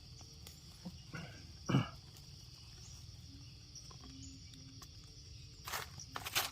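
Steady high-pitched chirring of an insect chorus in forest, with a few brief rustling noises about a second in and near the end.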